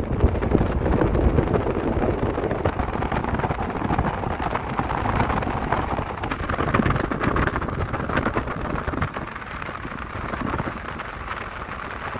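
Wind buffeting the microphone in gusts, a loud rushing noise that swells and eases.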